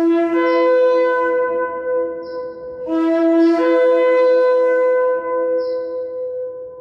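Ram's-horn shofar blown in two long blasts. Each starts on a low note, breaks upward to a higher note within the first second and holds it for a couple of seconds before fading.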